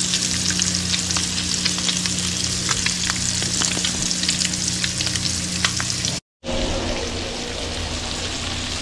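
Crappie fillets frying in melted butter in a cast iron skillet: a steady sizzle with many small pops and crackles. The sound cuts out for a moment about six seconds in, then the sizzle carries on.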